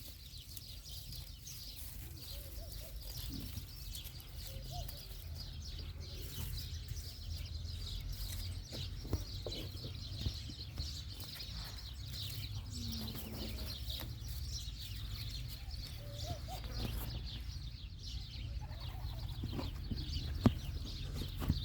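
A dawn chorus of many small birds chirping and twittering continuously over a low rumble, with a few faint bleats from baby goats now and then. A couple of sharp knocks near the end.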